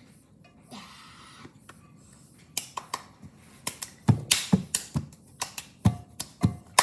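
A run of sharp clicks and knocks starting about two and a half seconds in, turning into heavier thumps about two or three a second, with a short hiss before them.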